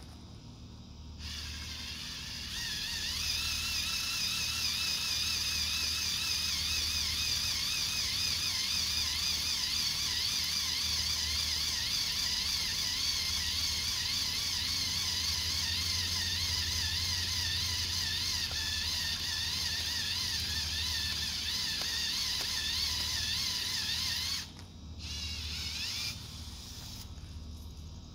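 Cordless drill spinning an auger bit into hard, dry dirt. Its motor whine wavers up and down in pitch for over twenty seconds, then stops, then spins up briefly once more with a rising pitch near the end.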